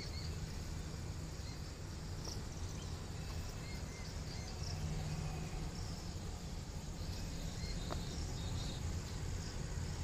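Faint outdoor ambience: scattered high chirps of insects over a steady low rumble.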